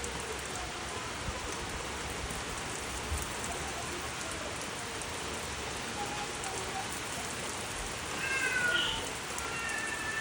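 A steady hiss like rain falling, with a few short high-pitched animal calls in quick succession near the end.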